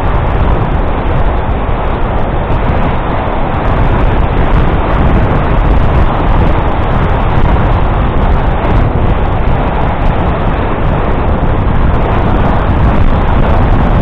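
Loud, steady wind buffeting the microphone of a camera on a moving bicycle.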